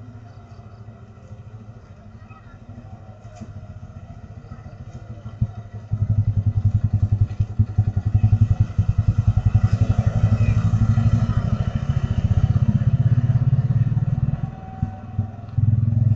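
Small motor scooter engine running close by, a low pulsing engine note that starts abruptly about six seconds in, drops away briefly near the end, then comes back.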